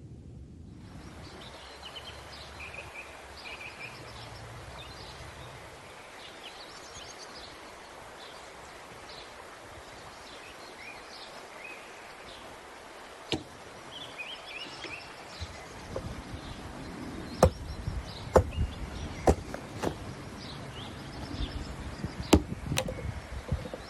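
Outdoor ambience with small birds chirping repeatedly, and from about halfway a series of sharp knocks or chopping blows, several loud ones close together near the end.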